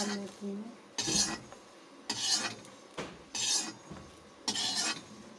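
Metal ladle scraping dry roasted vermicelli in a kadhai, five rasping strokes about a second apart.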